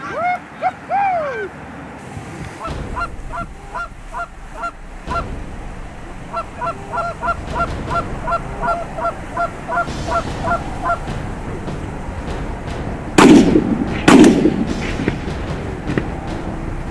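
Canada goose honks, then long runs of quick, evenly spaced clucking honks. Near the end come two loud shotgun shots about a second apart.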